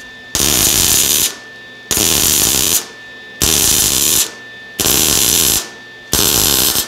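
MIG welder arc crackling in five bursts of about a second each, with short pauses between: stitch-welding an exhaust pipe joint one dot at a time across a deliberately left gap.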